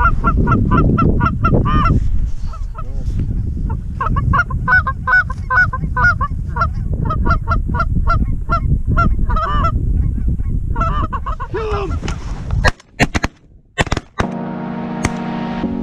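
Canada geese honking over decoys in many quick calls, with a low wind rumble on the microphone. Near the end comes a quick volley of about four or five shotgun shots, and then music begins.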